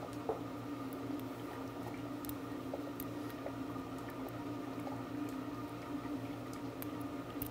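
A steady low equipment hum, with a few faint ticks scattered through it.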